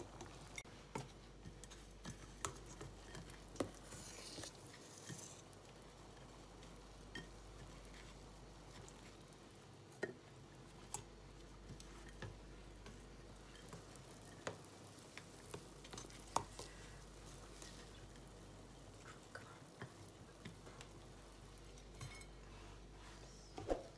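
Quiet kitchen handling: scattered light clicks and taps of metal utensils against a pot and pan as boiled quark dumplings are lifted out with a slotted spoon and rolled in toasted breadcrumbs.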